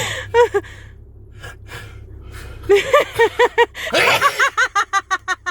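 A person sneezing in a fit of repeated sneezes: a sudden harsh burst about four seconds in, with bursts of laughter before and after it.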